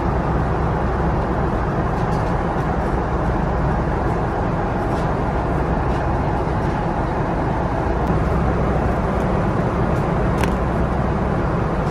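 Steady rumble and hiss of an airliner cabin in flight. Faint clicks of small toiletry items being handled on the tray table, with one sharper click near the end as a folding comb is handled.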